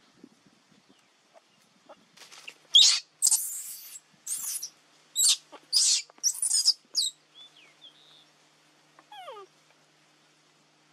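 Baby monkey screaming in a string of short, high-pitched shrieks between about two and seven seconds in, then one falling, whimpering cry a couple of seconds later.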